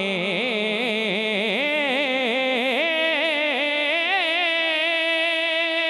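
A man singing a long wordless melisma of a Punjabi rubai solo into a microphone. His voice moves through quick wavering turns in pitch, then settles into a held note with a slight waver about halfway through.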